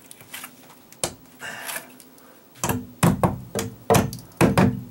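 Hammer striking plywood sheathing and framing, beating old stucco staples flat: a few light taps, then a quick run of about ten sharp blows in the last two seconds.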